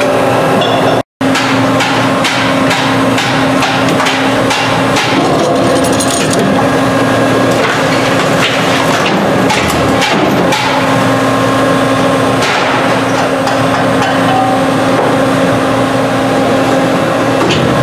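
Catalytic converter guillotine shear running with a steady machine hum, its blades cutting through converters with repeated sharp metallic clanks and cracks, thickest in the first half. The sound cuts out briefly about a second in.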